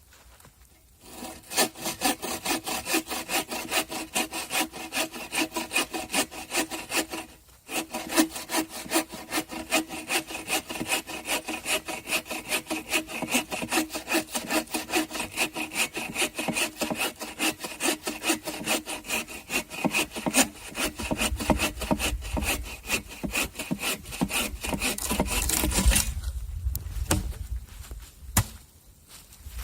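Hand saw cutting through wood in steady back-and-forth strokes. It breaks off briefly about seven seconds in, then runs on until it stops a few seconds before the end.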